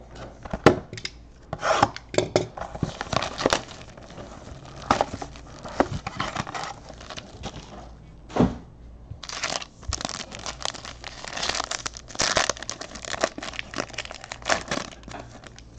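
Foil card pack from a Topps Tier One box being handled, then torn and crinkled open by hand: irregular rustling and crackling with a few sharp clicks, busiest in the second half.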